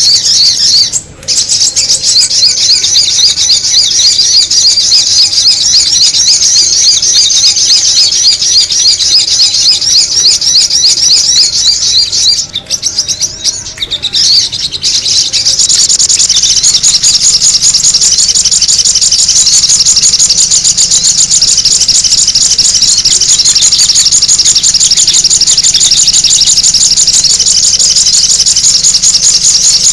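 Sogon bird lure call: a loud, dense stream of very rapid, high-pitched chattering chirps. It thins and breaks up briefly about halfway through, then runs on evenly.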